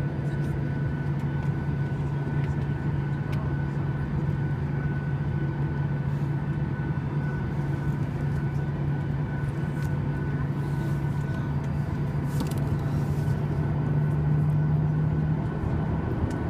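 Cabin noise inside a Ryanair Boeing 737 on the ground: a steady low drone with a thin, faint high whine above it.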